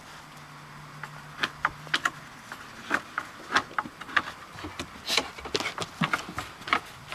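Dogs' claws and footsteps clicking and tapping irregularly on a wooden plank deck, with a low steady hum in the first two seconds.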